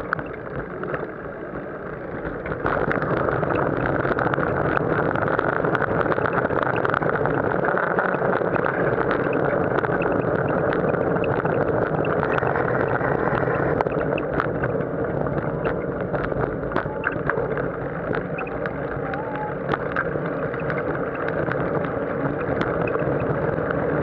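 Steady wind noise on the microphone and road rumble from riding alongside slow traffic, with many small clicks and rattles; it gets louder about three seconds in.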